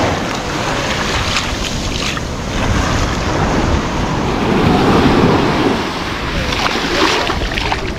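Surf washing on the beach, with wind buffeting the microphone.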